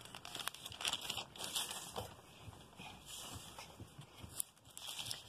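Glossy paper catalogue pages rustling in a series of short crinkles as they are handled and turned.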